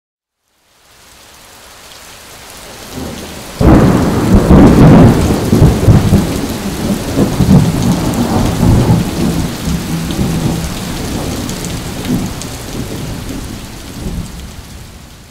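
Thunderstorm: rain hiss fading in, then a sudden loud thunderclap about four seconds in, followed by a long, uneven rumble of thunder that slowly dies away and fades out near the end.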